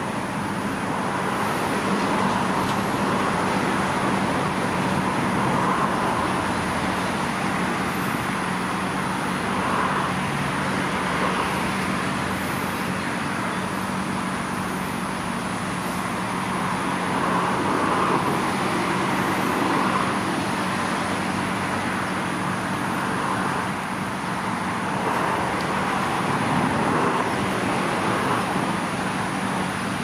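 Steady road traffic noise that swells and fades gently as vehicles pass, over a low steady hum.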